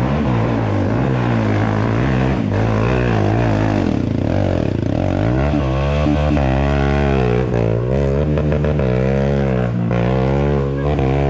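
Trail motorcycle engine revving hard under load, its pitch surging up and down as the rider works the throttle. The revs sag about four seconds in, then climb again.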